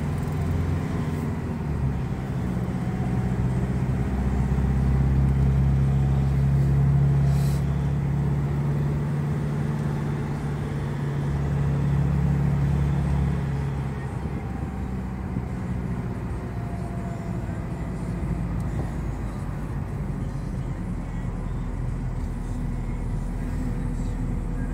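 Car engine and tyre noise heard from inside the cabin while driving, a steady low drone that eases off and grows quieter about halfway through.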